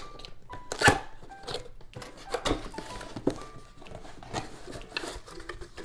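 Knocks, clacks and rustling as boxed shelves and their packaging are handled and unpacked, with light background music.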